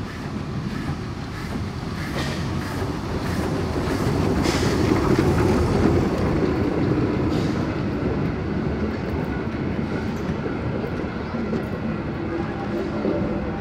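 Steam locomotive working past with a train of old carriages: regular exhaust chuffs, loudest as the engine goes by about five seconds in, then the steady rumble and clatter of the carriage wheels on the rails.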